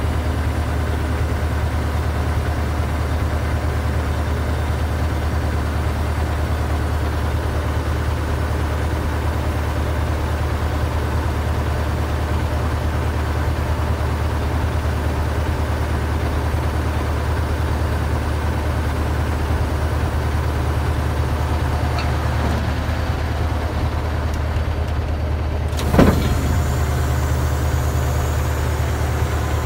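Container truck's engine running steadily at idle. About 26 seconds in there is a single sharp metallic clank.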